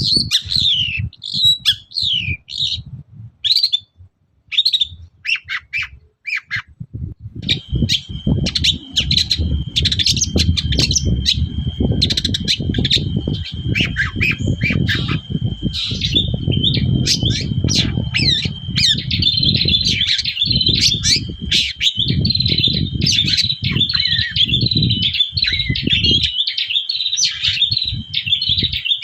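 Long-tailed shrike (cendet) in loud, full song: a rapid run of short, sharp high notes. From about a quarter of the way in, a long steady high tone is held under the notes, with a low rumble coming and going underneath.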